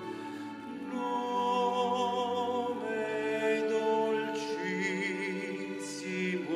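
Mixed choir of men and women singing slow, held chords of a sacred oratorio piece. One high voice's vibrato stands out about five seconds in.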